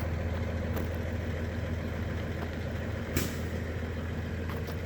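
Ford Explorer engine idling steadily, a low even hum, with one short click about three seconds in.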